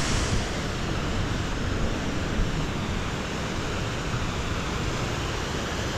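Glacial meltwater rushing steadily, an even hiss with a low rumble under it.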